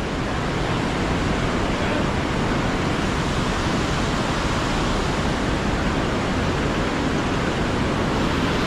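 Steady, even rushing roar of a fast white-water mountain river.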